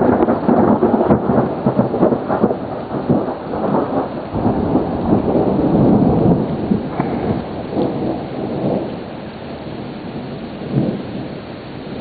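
Thunder rolling and crackling over steady rain. It is loudest through the first half and dies down to a softer rumble near the end.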